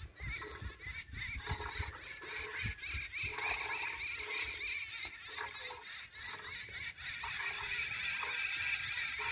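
Milk squirting from a cow's teat into a pail during hand milking, repeated streams as the teat is squeezed.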